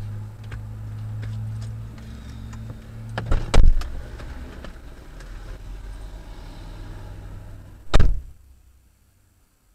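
Car engine idling, heard from inside the cabin, stopping about three seconds in with a couple of loud thuds. Some quieter handling sounds follow, then a car door slams shut once, loudly, near the end, and everything goes near silent.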